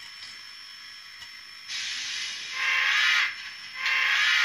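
Sound decoder in an HO scale brass Santa Fe 4-6-4 steam locomotive model playing steam hiss through its small speaker: two bursts of hissing, the first about two seconds in lasting about a second and a half, the second starting near the end.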